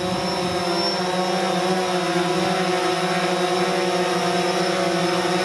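DJI Phantom 4 Pro quadcopter hovering, its propellers giving a steady hum of several held tones, over an even hiss of falling rain.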